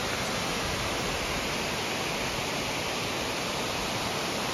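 Steady rushing of a rocky forest stream, an even roar of white water without breaks.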